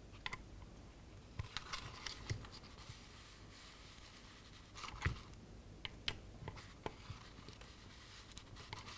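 Faint, scattered clicks and scrapes of a dial torque wrench and its socket being fitted and turned on the cam-plate chain tensioner's screws while they are torqued to spec.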